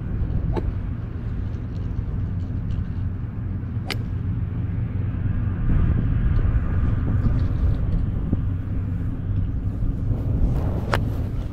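A steady low outdoor rumble runs throughout, with a sharp click near the end as a golf iron strikes the ball off the mat. A couple of fainter clicks come earlier.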